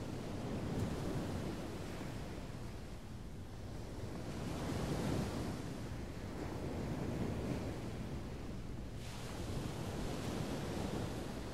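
Small waves breaking and washing up a sandy beach, the surf swelling about halfway through, with wind rumbling on the microphone.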